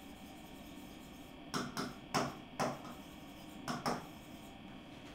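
A pen tapping and knocking against the glass of a digital writing board while writing by hand: about six short taps in two small groups, over a faint steady electrical hum.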